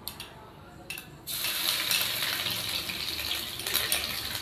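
Hot oil with whole spices bursting into a steady sizzle about a second in, as a spoonful of ginger-garlic paste is dropped into it, after a few light clicks of the spoon against the bowl.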